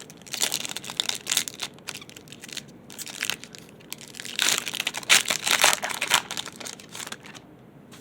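A trading card pack's wrapper being torn open and crinkled by hand, in two spells of rapid crackling, the second louder.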